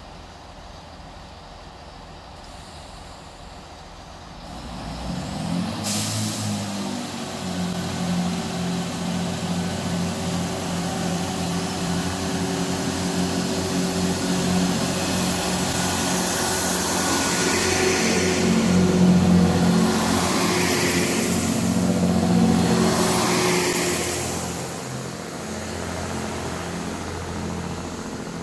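Diesel engines of a CrossCountry Voyager multiple unit start running loudly about four seconds in and keep running steadily, building to a peak past the middle. Several hissing bursts of air come in over the engines in the second half.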